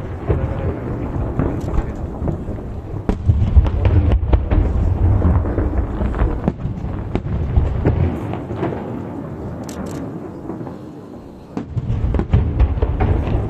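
Aerial fireworks bursting in quick succession: many sharp bangs over a continuous low rumbling boom, heaviest a few seconds in and again near the end, with a brief lull just before.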